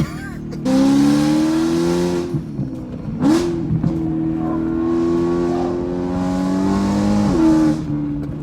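BMW M3's V8 with a near-straight-piped Akrapovic exhaust accelerating hard, its pitch rising steadily through two long pulls with a gear change between them about three seconds in, and another sharp change in pitch near the end.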